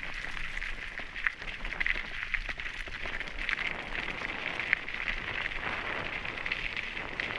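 Mountain bike tyres rolling over a loose gravel single track, a steady crunching with many small irregular crackles and ticks from stones under the tyres and the bike rattling.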